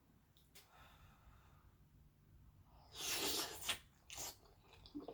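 Faint chewing of a mouthful of baked macaroni and cheese. About three seconds in there is a short, loud, breathy burst from the mouth, with a sharp click soon after.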